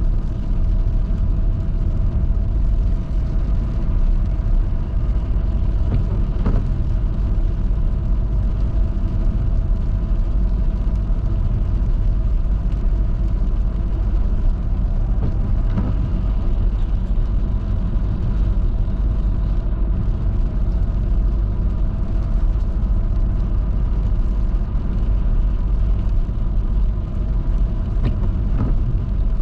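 Car driving on a rain-wet highway: a steady low rumble of tyre and engine noise with no let-up.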